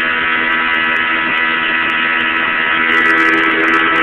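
1996 Bayliner 17-foot runabout's engine running steadily with the boat underway, over a rush of wind and water; it gets a little louder about three seconds in.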